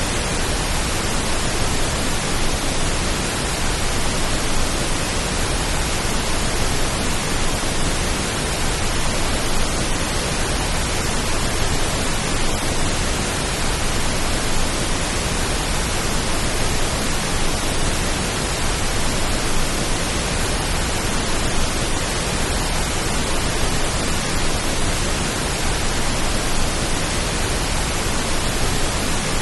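Steady pink noise: an even, full-range hiss that holds at the same level throughout with no changes, made as a soothing rain-like sound.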